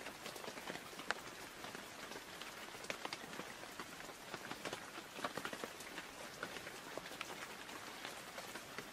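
Steady rain pattering, with many small drops ticking sharply.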